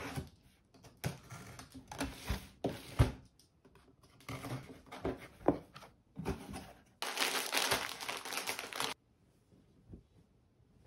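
A cardboard box being unpacked: a box cutter slits the packing tape in short scraping strokes and the flaps are pulled open. Near the end, paper and plastic wrapping crinkle for about two seconds, the loudest part, and stop abruptly.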